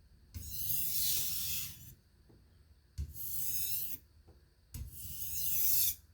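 Steel knife blade drawn across a wet whetstone in stropping strokes: three long scraping hisses with short pauses between. It is working off a burr that is still left on the edge.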